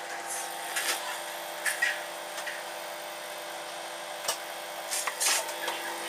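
Microwave oven running with a steady electric hum, a cigarette lighter heating inside it. A few short, sharp noises break in, about one, two, four and five seconds in.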